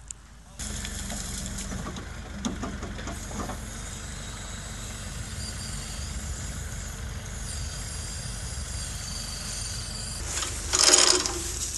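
Backhoe loader's diesel engine running steadily while the rear boom and bucket are worked, with a louder rush of noise for about a second near the end.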